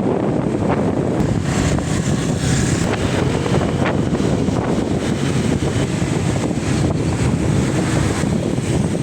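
Wind buffeting the microphone: a steady, loud low rumble, with the sea faintly behind it.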